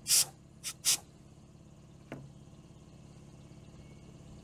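Short blasts of compressed air hissing from an air line in the engine bay, three within the first second, with a light knock about two seconds in, over a steady low hum.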